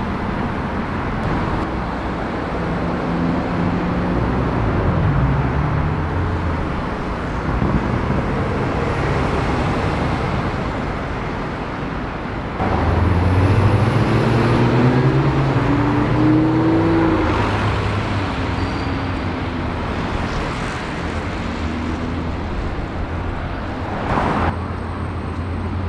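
Street traffic: car engines running and passing over steady road noise. About halfway it gets louder and an engine rises in pitch as a car accelerates away. Near the end there is a brief sharp noise, then engines again.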